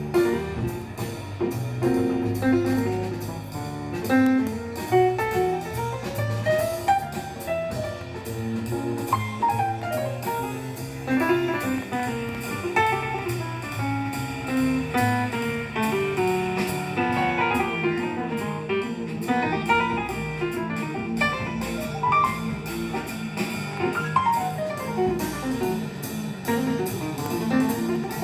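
Jazz-style instrumental music with guitar and drums, played through a single-ended Miniwatt EL3N pentode valve amplifier.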